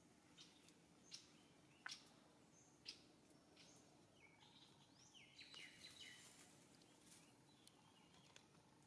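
Near silence with faint bird chirps: a few sharp single notes in the first three seconds, then a short burst of high, stepped twittering around the middle.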